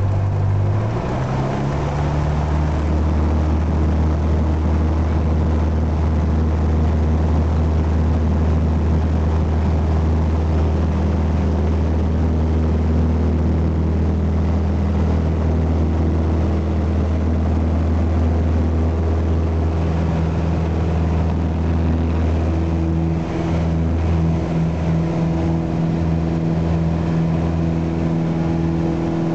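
Small propeller aircraft engine running at high power with a steady drone. Its pitch settles lower about a second in, and the tone wavers and flutters in the last few seconds.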